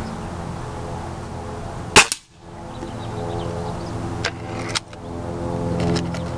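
A single shot from a .22 Beeman RS2 break-barrel spring-piston air rifle, a sharp crack about two seconds in. A couple of fainter clicks follow a few seconds later, over a steady low hum in the background.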